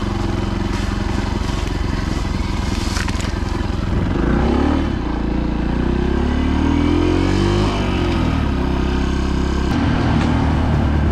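Rieju MRT off-road motorcycle engine running at low revs, then from about four seconds in revving up and down several times as the bike is ridden.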